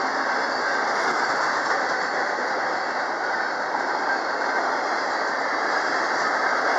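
Double-stack intermodal well cars rolling past: the steady noise of steel wheels running on rail.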